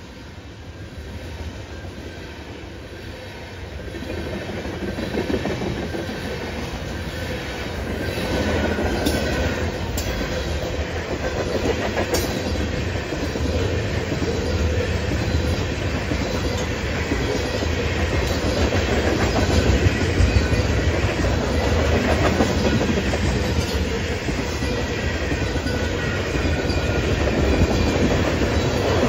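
Freight train rolling past, its wheels clicking and clattering over the rail joints, growing louder over the first several seconds and then staying loud, with a few sharper clanks along the way.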